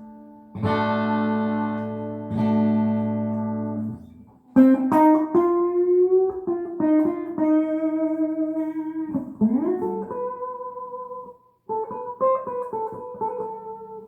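G&L CLF Doheny V12 electric guitar played clean: two strummed chords left to ring, then a single-note melody line with a slide up to a higher note about two-thirds of the way through.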